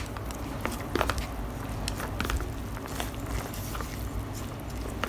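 Wooden chopsticks stirring and tossing sauced Peyoung instant yakisoba noodles in the white cup tray: irregular clicks and taps of the sticks against the tray, a few louder ones about a second and three seconds in.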